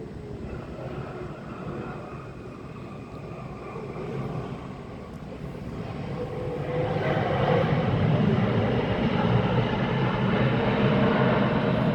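Jet airliner engine noise, a broad rumble that grows much louder about six to seven seconds in and then holds steady.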